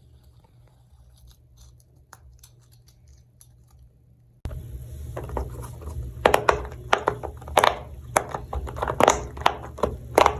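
Faint scattered clicks, then about four and a half seconds in a sudden step up to a low hum with a run of sharp, irregular clicks and snaps, several a second.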